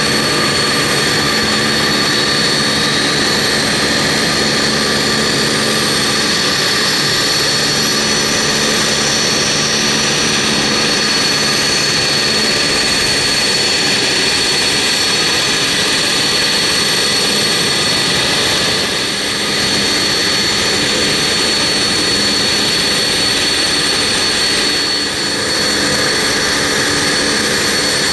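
Avro RJ100 Honeywell LF507 turbofan spooling up during engine start: a steady high-pitched jet whine and rush, with a second whine climbing steadily in pitch over the first ten seconds or so as the fan comes up to speed, then running evenly.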